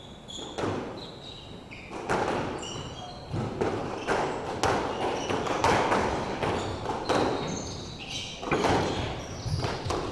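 Squash rally: the ball knocks sharply off racquets and walls, starting about two seconds in, mixed with short high squeaks of court shoes on the hardwood floor.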